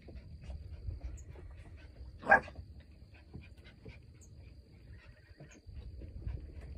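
A dog barks once, loud and short, about two seconds in. Fainter small sounds and a low rumble of wind on the microphone run underneath.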